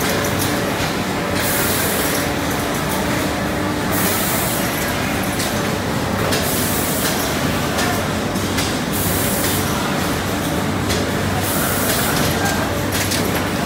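Ice cream extrusion line running: a steady machine hum, broken every second or two by short hisses of compressed air as the pneumatic cylinders and valves cycle.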